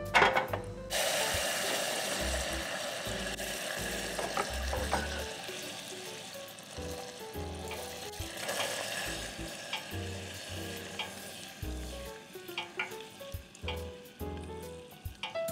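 Sizzling in a hot pan that starts suddenly about a second in and slowly dies down, with a few light clicks along the way.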